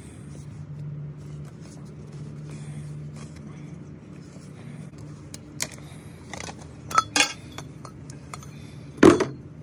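Metal shaft sections of a weed trimmer being handled and fitted together: scattered clinks and knocks, with the loudest knock near the end. A faint steady low hum runs under the first half.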